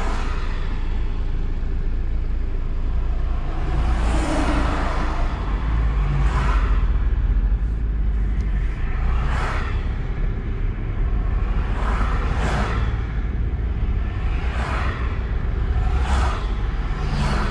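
Road traffic: cars passing close by one after another, each a brief swish every two or three seconds, over a steady low rumble.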